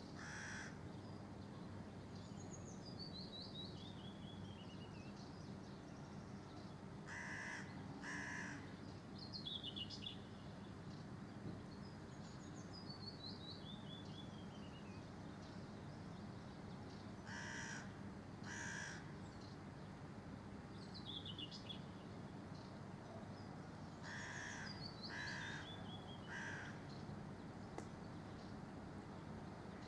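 A crow cawing in groups of two or three calls, while a small songbird repeatedly sings a short run of high notes that falls in pitch. A steady low hum lies underneath.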